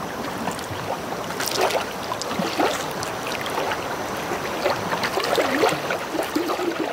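Lakeside water sounds: a steady rush of water with lapping and small splashes and gurgles scattered through it.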